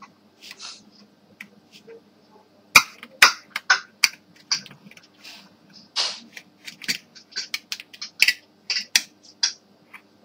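Plastic latches on the rear panel of a Xerox Phaser 3052 / WorkCentre 3215 toner cartridge being worked loose and unsnapped: a string of irregular sharp plastic clicks and snaps, the loudest about three seconds in.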